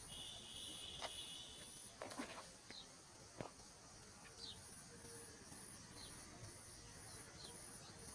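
Faint insect chirping: a high, pulsing trill repeating about twice a second, with a few soft clicks.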